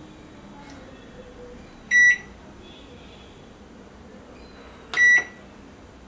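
Black Beauty microwave oven's keypad beeping twice, about three seconds apart, as the power level is set to high (P100).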